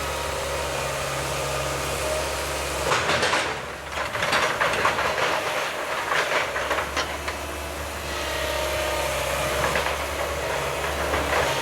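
Excavator's diesel engine running steadily. About three seconds in there is a few seconds of loud clattering and cracking, and more cracking comes a little later.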